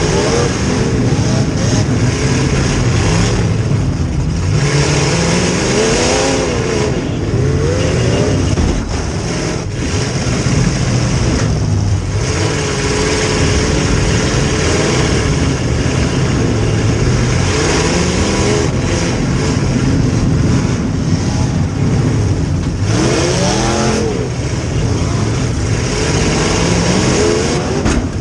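A demolition derby car's V8 engine running hard, heard from inside the car, its pitch repeatedly climbing and falling as it is revved up and backed off.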